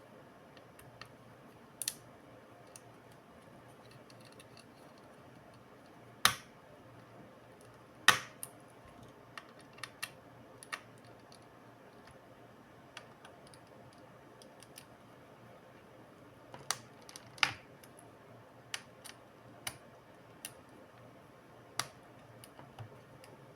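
Irregular sharp clicks and taps from hands and small tools working on a laptop's plastic case and internal parts, over a faint steady background; the loudest knocks come about six, eight and seventeen seconds in.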